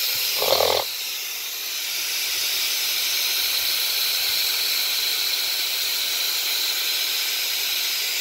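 Pressurised nitrogen hissing steadily as it vents out of an air conditioner's refrigerant lines, the system being purged after a pressure test. A brief louder sound comes about half a second in.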